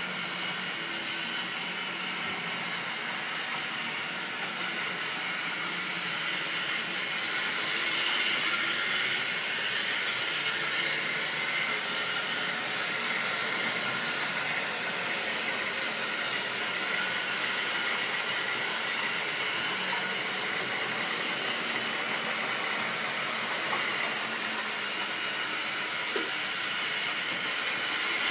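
Model railway trains running on the layout: a steady whirring, rolling hum of small electric motors and wheels on the rails as a long train of coaches and tank wagons passes close by, a little louder from about a quarter of the way in.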